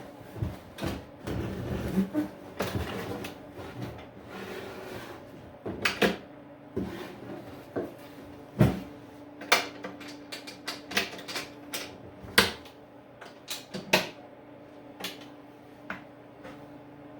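A series of irregular knocks and clunks, wood and hardware being handled on a flip-top shop tool cart, with a faint steady hum starting about six seconds in.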